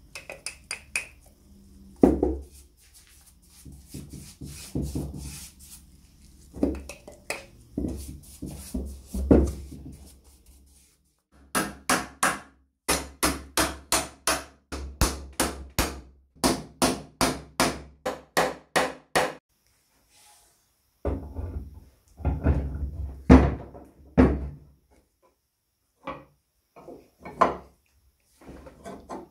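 Hammer blows on wood, in several irregular groups, with a fast steady run of about three strikes a second in the middle.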